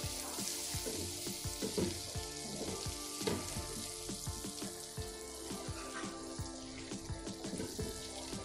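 Butter melting and sizzling in a hot pot as a wooden spatula pushes the block around: a steady frying hiss with many small crackles and pops.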